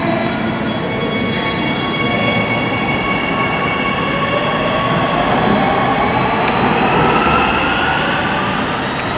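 Ui-Sinseol Line light metro train pulling away in the tunnel, with rumble and an electric motor whine that rises in pitch as it speeds up. A couple of sharp clicks come near the end.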